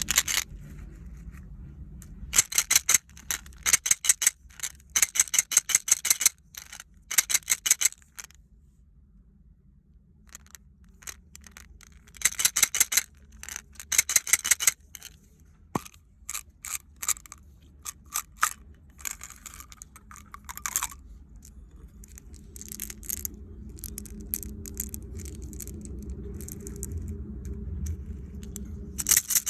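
Bursts of rapid clicking and rattling from small hard objects being handled, with pauses between the bursts, over a faint low hum.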